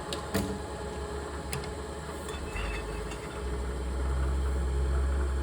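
Steady low machine hum with a few sharp clicks in the first second and a half; the low hum grows louder about three and a half seconds in.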